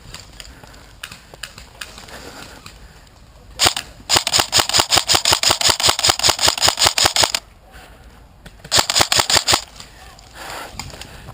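Airsoft electric rifle, the KWA KM4 SR10, firing a single shot and then two quick strings of rapid shots, about eight a second: a long string of roughly three seconds and a short one of under a second.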